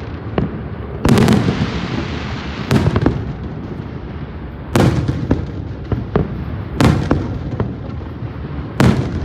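Aerial fireworks bursting: five loud booms about every two seconds, with smaller pops between them.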